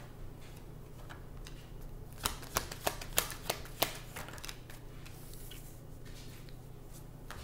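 A deck of tarot cards being shuffled by hand, with a run of about six sharp card clicks, some three a second, between about two and four seconds in, and softer rustling of the cards around it.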